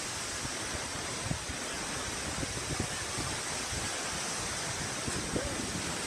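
Strong storm wind rushing steadily and buffeting the microphone in gusts.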